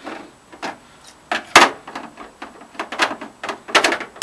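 Irregular clicks and knocks of a screwdriver and hands working against a CRT television's plastic back casing. A louder knock comes about a second and a half in, and a quick cluster of knocks comes near the end.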